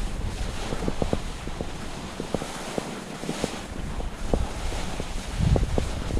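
Skis sliding and scraping over snow with a steady rushing hiss, dotted with sharp irregular clicks and clatter, while wind buffets the microphone with a low rumble that grows stronger near the end.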